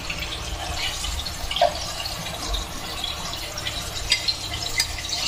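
Pomfret pieces shallow-frying in hot oil in a nonstick pan: a steady sizzle with scattered crackles and pops. A couple of sharper clicks come near the end as a spatula works the fish in the pan.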